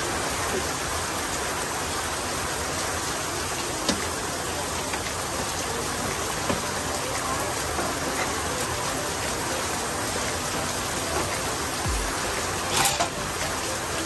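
Steady, even hiss, with a few light knocks and a louder metallic clank about thirteen seconds in as a TSMP Silent Killer exhaust muffler is handled and fitted to a Yamaha NMAX scooter.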